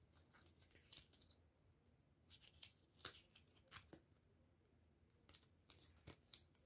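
Faint rustling and scratching as a cardboard hang tag and a fabric care label on a plush teddy bear are handled by fingers, in short scattered scratches.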